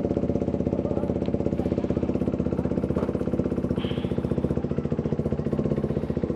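KTM RC motorcycle's single-cylinder engine running steadily at low revs with an even, rapid beat and no revving, as the bike moves slowly.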